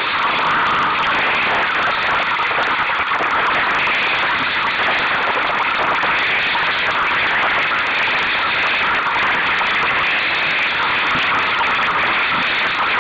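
Steady rushing of wind and water as a sailing dinghy moves through choppy water: an even, unbroken hiss.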